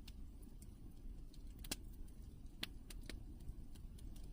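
Wood campfire crackling faintly: scattered sharp pops and snaps, a few louder ones around the middle, over a low steady rumble.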